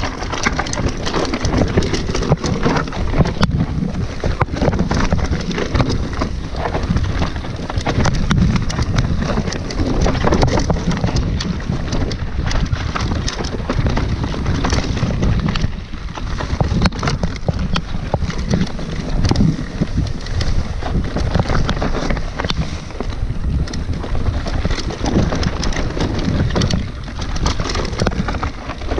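Mountain bike rolling down a rough, stony singletrack, heard on the rider's camera: a steady rush of wind on the microphone with constant rattling and knocking as the bike runs over stones.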